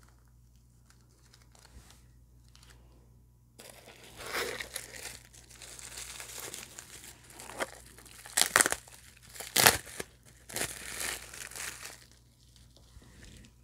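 Plastic bubble-wrap bag crinkling and rustling as it is handled and opened and a small bottle is pulled out of it, starting about three and a half seconds in. There are two louder, sharp crackles near the middle.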